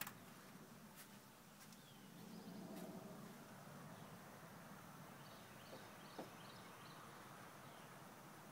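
Near silence: faint outdoor ambience with a few light clicks and, around the middle, a short run of faint high bird chirps.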